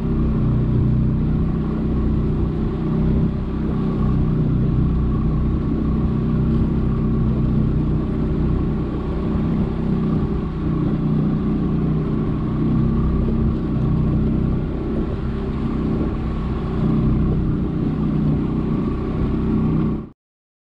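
Evinrude outboard motor running steadily with the boat under way, its steady drone over a rush of noise. It cuts off abruptly near the end.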